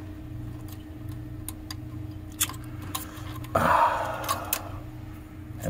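Small plastic wire connectors being pushed onto the pins of a cassette deck's circuit board: scattered light clicks and ticks, with a short scraping rasp a little past the middle and a steady low hum underneath.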